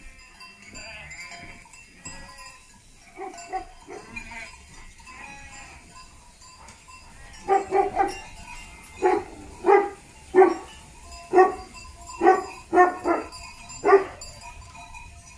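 A flock of sheep bleating, soft at first, then about ten short, louder calls in quick succession through the second half.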